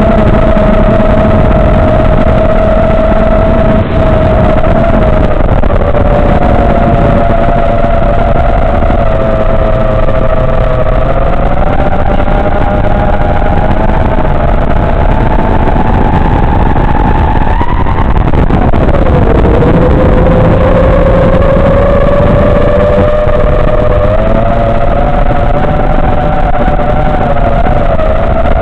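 FPV quadcopter's brushless motors and propellers whining loudly, the pitch drifting up and down with the throttle. About two-thirds of the way through the whine climbs, then drops sharply.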